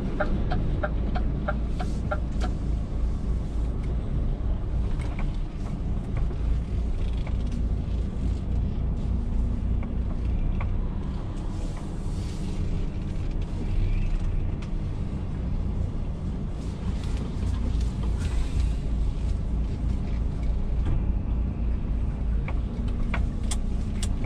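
DAF truck's diesel engine running at low speed inside the cab while the truck manoeuvres slowly, a steady low rumble. A quick run of evenly spaced ticks sounds in the first couple of seconds.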